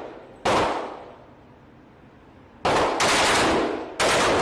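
AK-pattern rifle firing single shots, each with a long fading tail: one about half a second in, then three more near the end, the first two of those close together.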